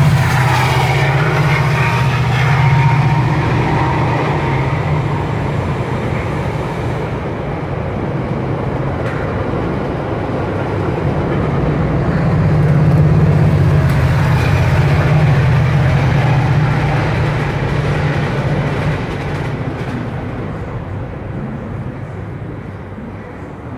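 Low, steady rumble of a heavy vehicle, loud at first, swelling again about halfway through and fading toward the end.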